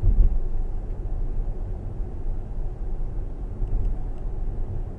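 Steady low road and tyre rumble inside the cabin of a moving Tesla Model S P90D electric sedan.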